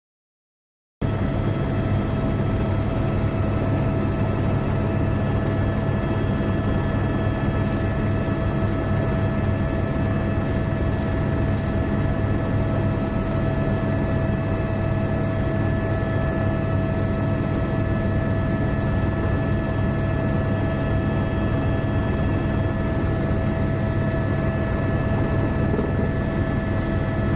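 Steady engine drone of an aircraft in flight, heard from on board: a low rumble with a steady whine above it, starting abruptly about a second in and holding unchanged.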